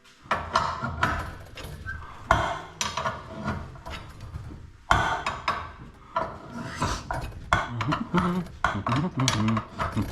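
Irregular metallic clanking and knocking of hand tools against garage door hardware, with several sharp strikes.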